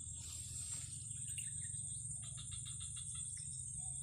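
Steady high-pitched insect drone from the grass, over a low background rumble, with a short run of rapid chirps about two seconds in.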